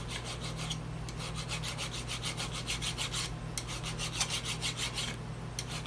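Hand file scraping back and forth across the steel armature shaft of a trolling motor, deburring it where the prop drive pin goes through. It makes quick, even strokes, several a second, in runs broken by brief pauses.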